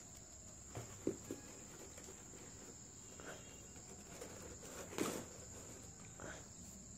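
A rubber-soled sandal and its straps handled in the hands, giving a few soft knocks and rustles, the loudest about five seconds in. A steady high-pitched tone runs underneath.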